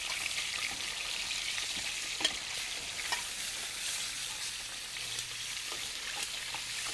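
Breaded chicken pieces frying in a pan of hot oil, giving a steady sizzle. Metal tongs clink lightly a couple of times, about two and three seconds in.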